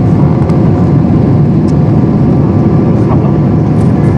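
Boeing 777-300ER cabin noise on approach: steady jet engine and airflow noise from the GE90-115B engine beside the window seat, with a faint steady whine.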